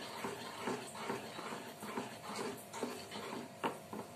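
Wooden spatula stirring a thick, cooking mixture of milk, milk powder and ghee in a steel kadai, in short strokes a few times a second with one sharper stroke near the end. The mixture is being stirred continuously as it thickens into khoya kheer, to keep it from lumping.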